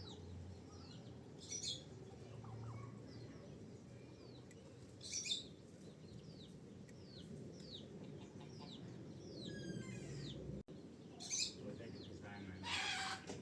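Farmyard poultry calling faintly: a run of short falling chirps, with a few louder rasping calls now and then.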